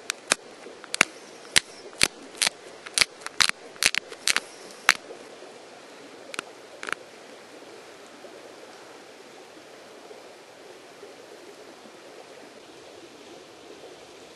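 Sharp clicks of small flakes snapping off a basalt flake as it is pressure-flaked into a stone drill bit: about a dozen in the first five seconds, then two more near seven seconds, over a steady hiss.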